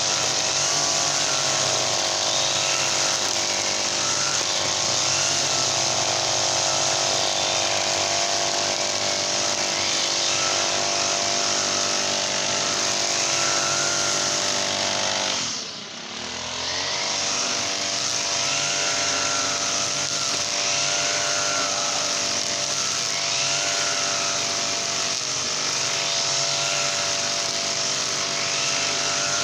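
Brush cutter's Honda GX35 four-stroke engine running at high throttle. About halfway through the revs briefly drop and then pick up again.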